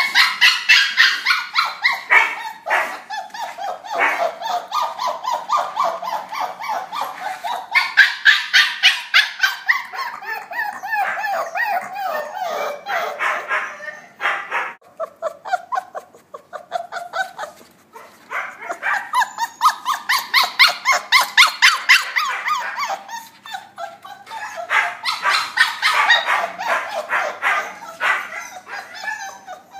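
Several husky puppies yipping and barking at each other during play, in rapid high-pitched runs of calls that come in four or five bouts with short lulls between.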